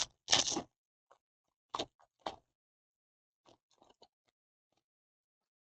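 Trading cards being handled: a few short sliding and rustling scrapes, the loudest one just after the start, and fainter ones about four seconds in.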